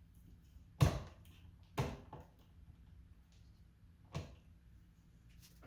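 A few sharp clicks and knocks, three louder ones about a second, two seconds and four seconds in, with fainter ticks between: hands and a screwdriver working on the EV charger's wiring lugs.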